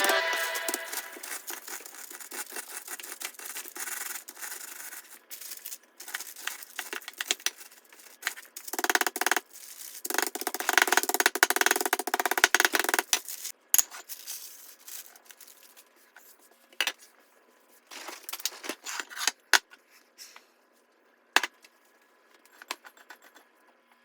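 Kitchen handling noises from food preparation: irregular rustling and rubbing with scattered clicks and taps. The rubbing is loudest in two stretches, around nine seconds in and from about ten to thirteen seconds, then thins out to a few isolated clicks.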